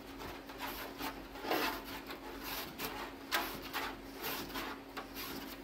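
Irregular scraping and rubbing as pull-pull cable wire is pushed through the inside of a model airplane fuselage, rubbing against the structure in short strokes.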